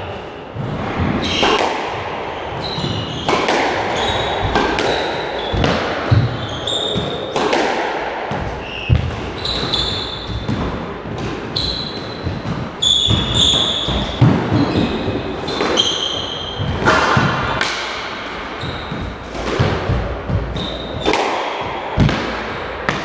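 Squash rally: the ball cracking off rackets and the court walls in irregular sharp hits, with rubber-soled shoes squeaking and feet pounding on the wooden floor.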